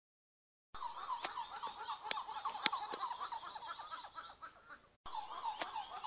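Saki monkeys calling: a rapid string of short, high, bending calls, several a second, with sharp clicks mixed in. It starts about a second in, dies away briefly near the end, then starts again abruptly.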